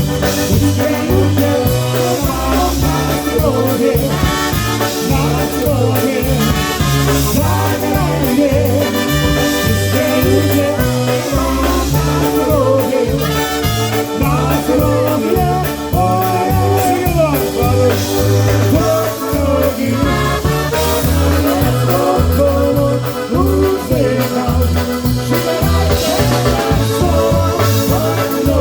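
Live polka band playing, with a steady oom-pah bass beat under the melody lines.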